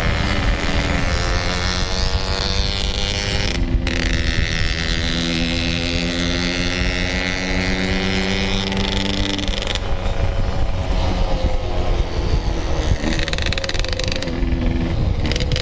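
Yamaha RX-King's two-stroke single-cylinder engine running while riding, with wind on the microphone. Its pitch climbs slowly from about four seconds in to near ten seconds in, then drops away. The rider says the clutch is slipping badly.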